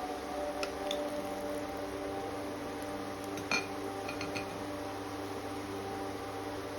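Batter fritters (Kakching bora) frying in hot oil, with a few metal clinks of a utensil against the pan, the loudest about halfway through, over a steady hum.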